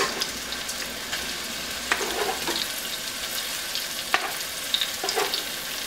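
Sliced onions and red and green bell peppers sizzling steadily in hot vegetable oil in a metal skillet, with a few sharp clicks of metal tongs handling the peppers.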